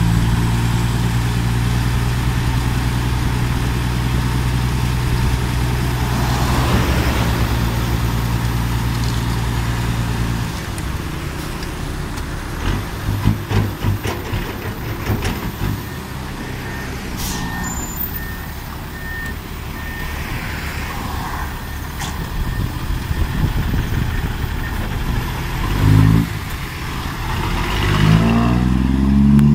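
Six-wheel dump truck's diesel engine held at steady raised revs while the hydraulic hoist tips the bed, dropping back about ten seconds in as the load of soil slides out with rattles and knocks. Near the end the engine revs up twice as the truck moves off.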